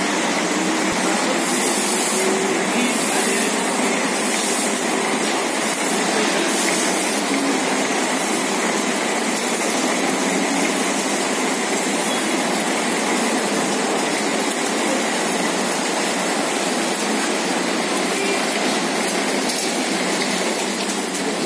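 Steady, loud running noise of a fertilizer bagging line, with an inclined belt conveyor carrying granular fertilizer from a feed hopper up to the bagging machine.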